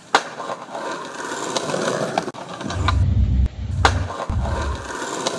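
A skateboard landing with a sharp slap just after the start, then its wheels rolling on stone paving: a rough rumble that grows heavier in the second half, broken by a couple of loud clacks.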